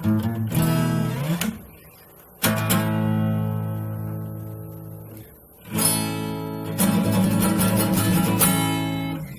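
Yamaha FX315 acoustic-electric guitar being played: a quick run ending in a note that slides up, then full strummed chords left to ring and fade, and a final strummed passage that stops near the end.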